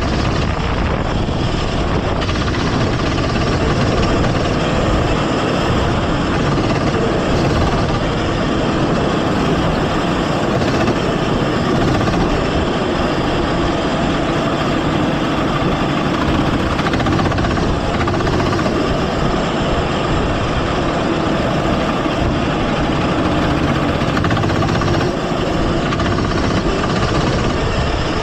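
Go-kart engine running steadily at racing speed, heard from an onboard camera on the kart, with an even, unbroken level throughout.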